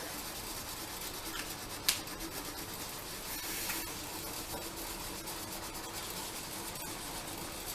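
Homemade felt-tip markers rubbing back and forth on paper as several people colour in, a steady scratchy sound, with a single sharp click about two seconds in.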